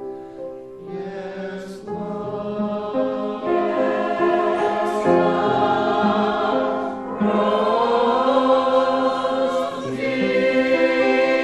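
A choir singing a slow hymn, sustained chords changing every second or two, with instruments accompanying.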